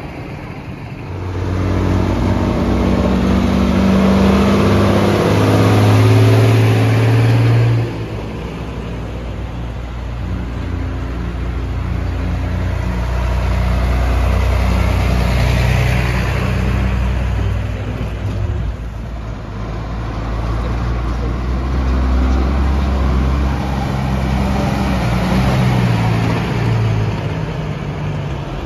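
Diesel engines of farm tractors towing carnival floats past, a steady heavy engine hum that is loudest for the first several seconds, then drops off suddenly and swells again as the next tractor approaches.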